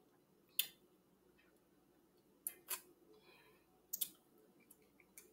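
Crab leg shell cracking and snapping as the meat is picked out by hand, together with eating sounds: a handful of short, sharp clicks scattered a second or so apart.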